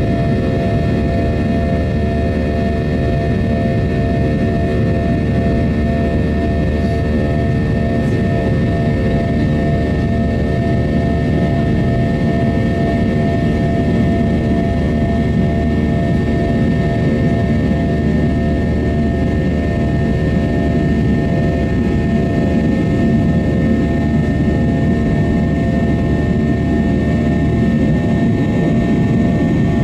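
Inside the cabin of a Boeing 737-800 in its climb: the steady, loud rush of its CFM56-7B turbofans, with several even hum tones over the roar.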